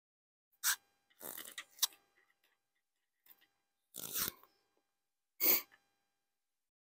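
A handful of short scratchy rustles with silence between them: a pen coloring on a paper planner page. About four seconds in comes a duller bump as the planner is shifted on the table.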